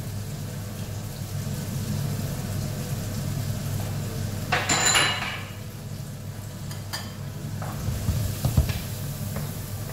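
Chopped shallot and ginger frying in hot oil in a frying pan: a steady sizzle over a low hum. About five seconds in there is a brief louder hiss, and near the end a few knocks of a wooden spoon against the pan.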